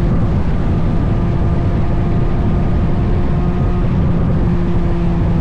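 Chevrolet Corvette C8 Z06's 5.5-litre flat-plane-crank V8 on trailing throttle, its engine note holding a steady pitch under a heavy low rumble of road and wind noise.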